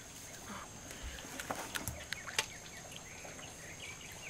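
Quiet outdoor background with faint bird calls and a few short, sharp clicks and taps about a second and a half to two and a half seconds in.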